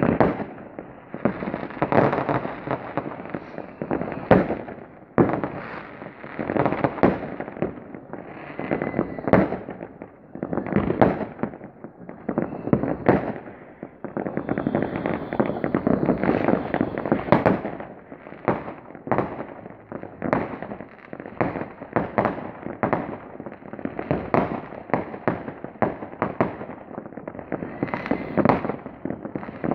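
New Year's Eve fireworks: an unbroken barrage of many overlapping bangs and crackles, some much louder than others, with no pause.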